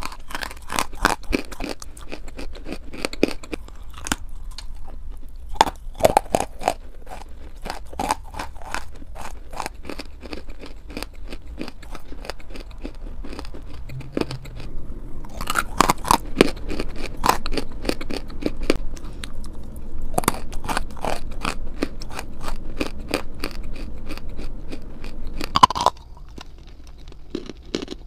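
Close-miked crunching and chewing of a dry grey chunk of edible clay, a dense run of sharp crackles. A fresh bite about halfway through brings a run of louder crunches. Near the end the sound drops abruptly to a quieter level.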